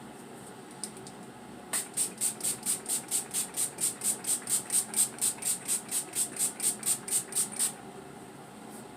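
Makeup setting spray misted from a pump bottle in quick repeated spritzes, about four or five a second for around six seconds, starting a couple of seconds in.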